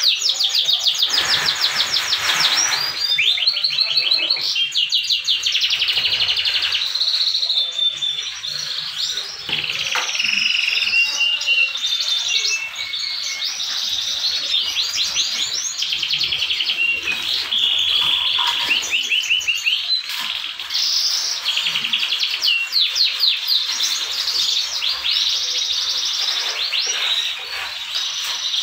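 Many caged canaries singing at once: dense, overlapping rapid trills and warbles that keep going without a break.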